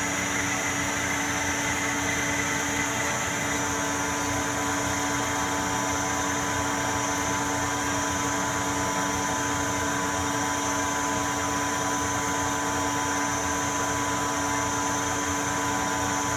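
Harrison 400T CNC lathe running with its spindle turning while the tool takes a light facing cut on aluminium bar stock: a steady machine hum with a constant high whine.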